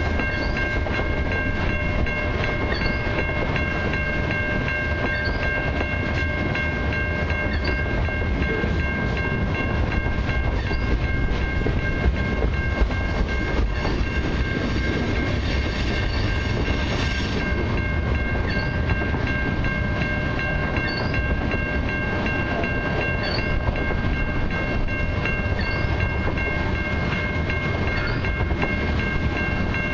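CN mixed freight train rolling past: hopper cars, a boxcar and tank cars rumbling and clattering over the rail joints. A level-crossing bell rings steadily over the rumble.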